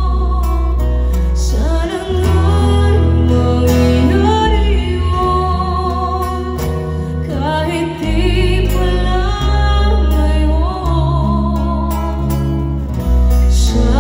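Live ballad performance: a singer with an acoustic guitar, backed by an orchestra with strings and sustained bass notes.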